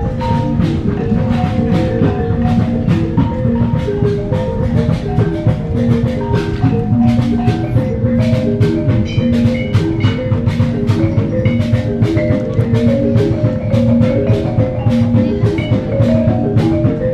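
Music: a melody of short mallet-struck pitched notes, like a marimba or xylophone, over a steady drum beat.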